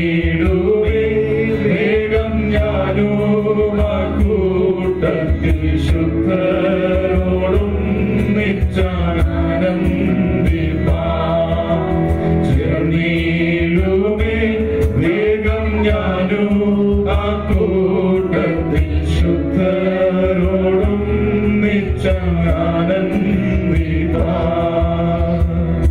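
Three men singing a hymn together into microphones over a steady instrumental backing.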